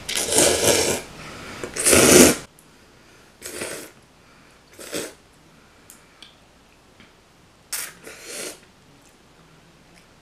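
A person slurping instant ramen noodles up from chopsticks: two long, loud slurps in the first couple of seconds, then a few shorter, quieter slurps.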